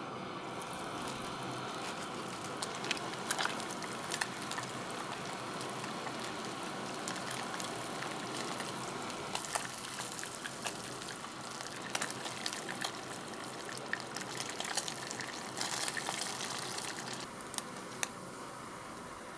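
Skin-on fish fillets frying in hot oil in a pan: a steady sizzle with many small crackles and pops. The sizzle softens near the end.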